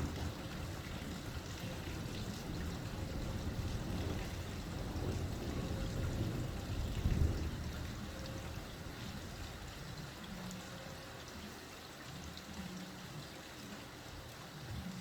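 Steady rain with water trickling and pouring, under a low rumble that is strongest over the first half and dies away.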